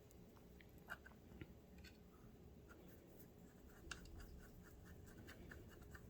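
Near silence: room tone with a few faint small clicks and a short run of faint ticks near the end.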